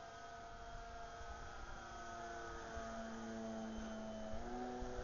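Radio-controlled 1/6 scale Fokker Dr.I model plane's motor droning in flight, growing gradually louder. Its pitch sags slowly, then steps back up about four seconds in.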